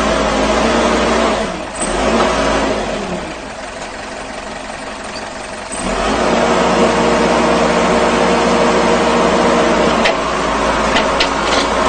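Construction machine's engine running, dropping back to a lower level for a few seconds and then rising again sharply about six seconds in. A few sharp clicks or knocks near the end.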